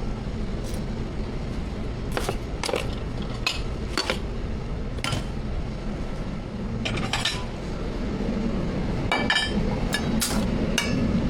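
Metal utensils clinking and clattering against pans at a street food stall: a dozen or so sharp, irregular strikes, one about nine seconds in ringing briefly, over a steady low rumble of background noise.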